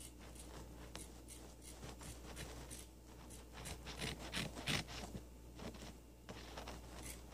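Scissors cutting cotton shirt fabric: faint, irregular snips with cloth rustling and scraping.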